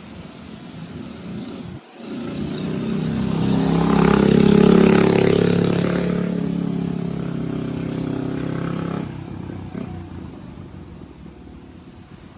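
Coleman CT100U mini bike's small single-cylinder engine running through an aftermarket AR Sport exhaust. It breaks off briefly about two seconds in, then swells to its loudest around the five-second mark, eases off, and drops sharply about nine seconds in to a quieter running sound.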